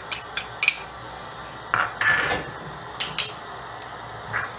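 Kitchen utensils and dishes clinking and knocking: a scatter of short clinks, with a slightly longer scrape about two seconds in.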